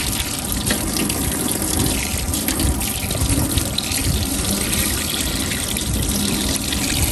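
Water running steadily from an outdoor brass faucet and splashing over hands rinsing a small fish beneath it.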